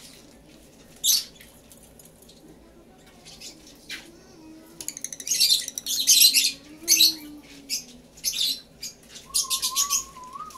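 Fischer's lovebirds in a wire cage chirping in shrill, harsh bursts, busiest in the middle and again near the end, with a bird fluttering about the cage.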